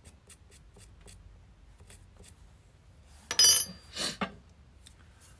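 Small steel pieces and hand tools handled on a metal workbench: light ticks, then a sharp ringing metal clink about three seconds in, followed by two smaller knocks.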